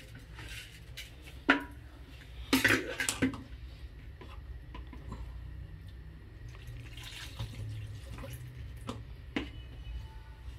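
Water from a kitchen tap running and splashing as a red plastic bowl is rinsed in a steel sink, with a sharp knock about one and a half seconds in and a short clatter of the bowl a second later.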